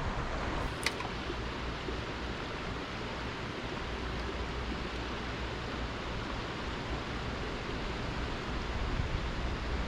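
Steady rushing and burbling of a trout stream's current, with one sharp click about a second in.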